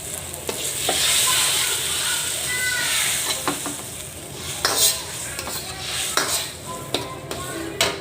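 Food sizzling in hot oil as it is stir-fried, with a spatula scraping and knocking against the pan every second or so.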